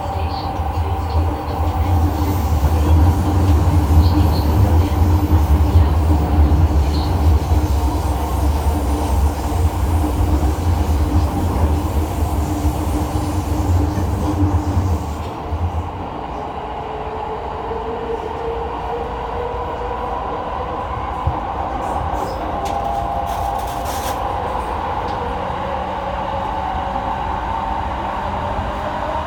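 Running noise heard inside a JR E217 series electric train carriage under way: a heavy low rumble for about the first half, which eases off suddenly about halfway through, then a quieter steady running sound with faint whining tones.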